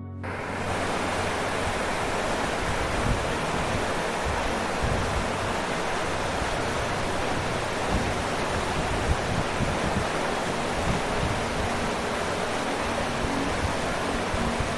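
Waterfall: a steady, dense rush of falling water that fades in at the very start and then holds even.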